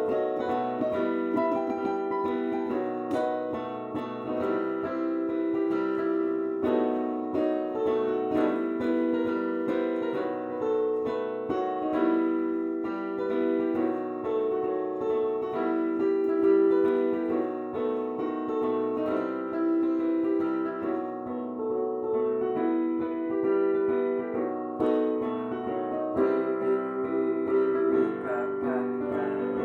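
Piano music: a continuous flow of sustained notes and chords in the middle register, without a break.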